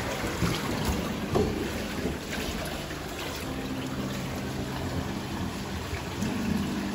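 Pool water lapping and trickling over a steady low hum.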